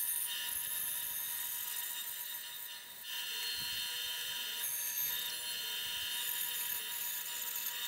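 Bandsaw running and cutting through a figured maple block, a steady whine with a brief dip about three seconds in.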